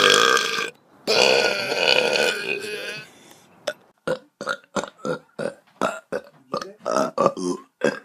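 A boy belching loudly twice, two long drawn-out burps, the second lasting about two seconds. From about four seconds in, a man makes a quick string of short, clipped vocal sounds.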